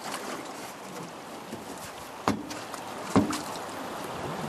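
Two sharp knocks against a fishing boat, about a second apart, over the steady rush of river water.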